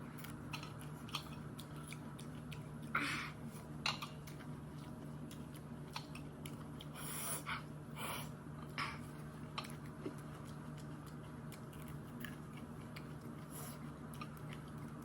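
A person chewing raw green chillies, with irregular short crunches over a steady low hum.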